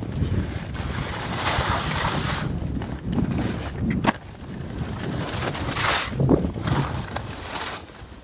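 Skis hissing and scraping over snow through a series of turns, the noise swelling and fading every second or two, with wind rushing over the microphone and a sharp click about four seconds in.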